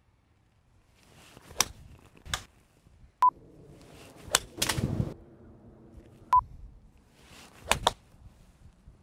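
Golf iron striking balls off the turf, a series of sharp cracks, with a short rough rush of noise just after the middle one. A short steady beep sounds twice, about three and six seconds in.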